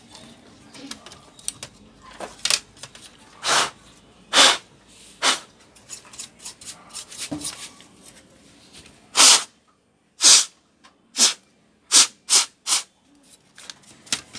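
Short, sharp puffs of breath blown hard through the mouth, about a dozen of them, to clear dust from a laptop's cooling fan and heatsink. A quicker run of five or six puffs comes in the last five seconds.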